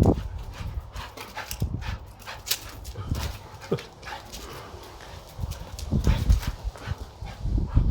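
Jack Russell terrier giving a brief whimper, among scattered thumps and clicks, the loudest thumps near the end.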